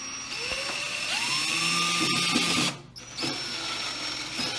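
Cordless drill/driver driving screws: the motor whines up in pitch during the first second, runs steadily, stops briefly just before the three-second mark, then starts again and keeps running.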